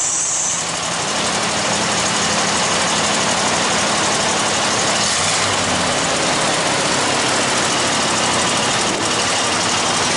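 1988 GMC K5 Jimmy's 350 V8 idling steadily through newly fitted 2.5-inch dual exhaust, with a calmed-down, toned-down exhaust note.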